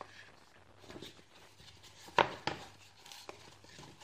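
Hands handling a nylon buttstock cover and its webbing straps: faint rustling of fabric, with two sharp clicks a little over two seconds in.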